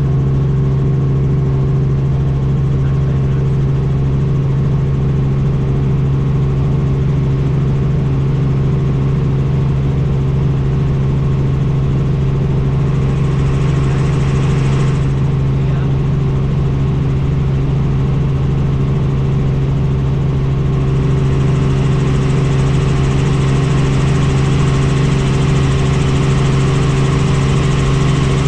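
Helicopter in flight: a loud, steady drone with a strong low hum. Brief extra rushing-air hiss about halfway through, and again for the last quarter.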